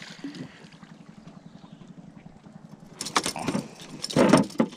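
A hooked snakehead thrashing at the side of a wooden boat while being fought on a rod: a cluster of sharp rattling clicks about three seconds in, then a louder splashing clatter about four seconds in.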